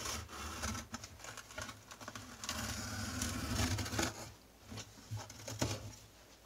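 A cardboard box being cut and torn open by hand: a fast run of clicks, scrapes and rustling, with a longer scraping tear about two and a half seconds in, then a few scattered knocks and one sharp knock near the end.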